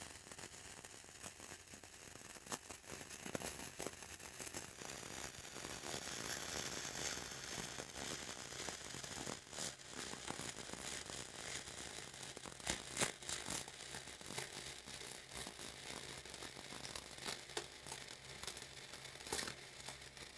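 Flux-cored wire-feed welding arc (0.045 flux-core wire) crackling steadily while the final cap bead is run.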